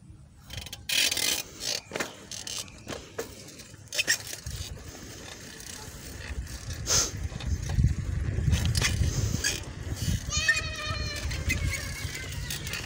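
Wind rumbling on a phone microphone during a bicycle ride, louder from about four seconds in, with scattered clicks and rattles. About ten seconds in there is a short, high, wavering cry lasting about a second.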